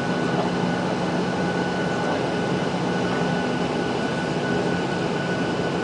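Cabin noise inside a Boeing 737-800 taxiing: the steady hum of its CFM56-7B jet engines at low thrust, mixed with the hiss of cabin air, a few steady tones running through it.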